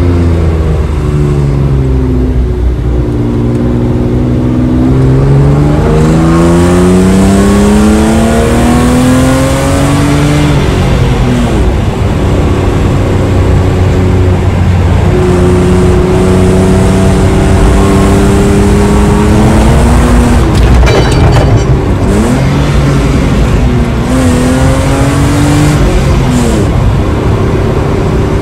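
BMW E36 320i's 2.0-litre straight-six engine and exhaust, heard from inside the cabin. The engine pulls up through the revs with a steadily rising note, drops back about ten seconds in and again about three-quarters of the way through, and holds steady in between, over steady tyre and road noise.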